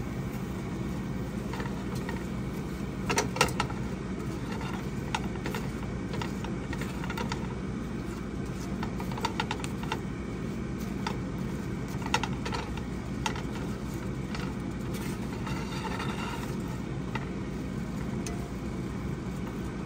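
A kitchen utensil clicking and scraping against a pan as cubed pickles are stirred into cooking ground meat, over a steady low hum. The clicks come in short clusters, a few seconds in, about halfway through and again around twelve seconds.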